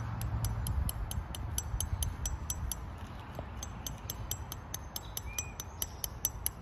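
Insect chirping outdoors: a steady run of high-pitched ticks, about five a second, with a short pause near the middle, over a low rumble.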